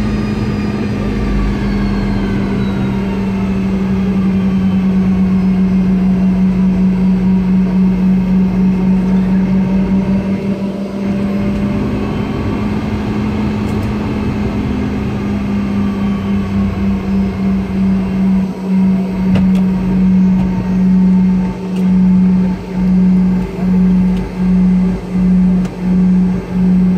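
Boeing 717's rear-mounted Rolls-Royce BR715 turbofans heard from inside the cabin during taxi: a steady low drone with faint whines that shift in pitch. From about two-thirds of the way in the drone begins to throb about once a second, the beat of the two engines running at slightly different speeds.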